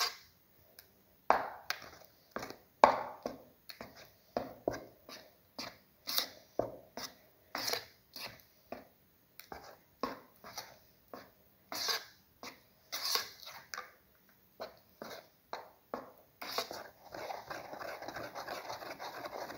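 A spoon stirring thick banana, egg and flour batter in a bowl, in irregular wet strokes, turning into steadier, continuous stirring near the end.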